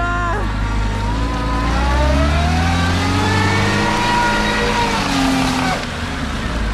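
Chevrolet Niva's engine revving under load as the car is dragged out of deep mud on a tow rope. The revs climb from about a second in, hold high, then fall away near the end.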